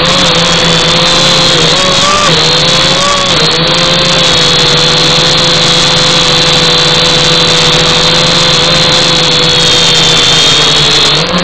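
Zoopa Q420 quadcopter's motors and propellers whining steadily in flight, the pitch wavering a few times in the first seconds and dipping near the end.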